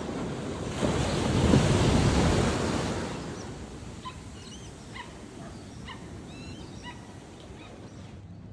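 A small wave breaks and washes up the beach, swelling to its loudest about a second and a half in and fading away by three seconds. After it comes a lower steady wash of surf with a few short, faint high chirps.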